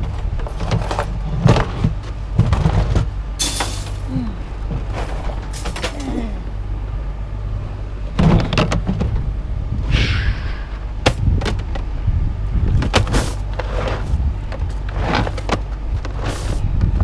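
Scrap steel and tin clanking and banging irregularly as pieces are thrown into a truck bed, with a scraping sound of metal about ten seconds in, over a steady low hum.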